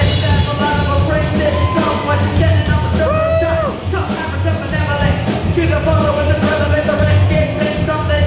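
Live rock band playing a song, kicking in at once: drum kit, bass and guitar with keyboard, and a boy singing lead into a microphone.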